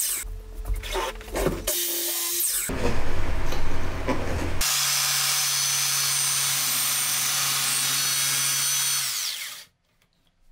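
Makita sliding miter saw running and cutting plywood, heard in a few short chopped-up stretches, then as one long steady run. Near the end the motor's pitch drops as it winds down, and the sound stops abruptly.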